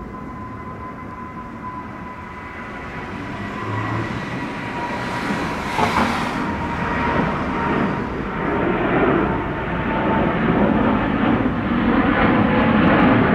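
Boeing 777 jet airliner climbing out after takeoff, the rumble of its twin jet engines building steadily louder as it nears.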